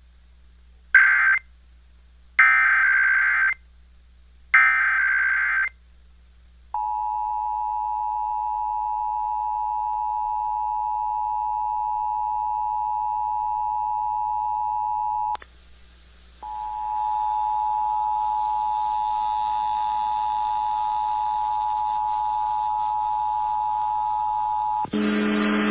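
Emergency Alert System test on a radio broadcast: three short bursts of screechy digital header tones, then the steady two-tone attention signal. The signal cuts out for about a second partway through and resumes with added hiss.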